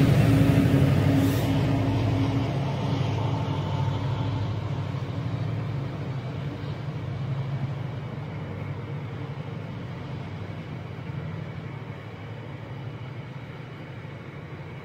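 Class 70 diesel-electric freight locomotive's V16 engine running and fading away as it pulls on, while a rake of tank wagons rolls past.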